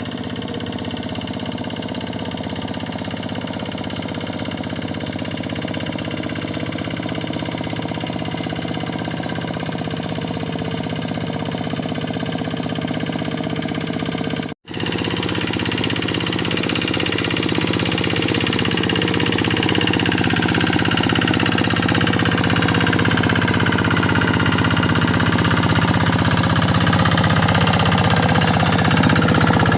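Diesel engine of a paddy-field tractor running steadily as it works through deep mud. About halfway through there is a momentary cut, after which it runs slightly louder with slow rises and falls in pitch.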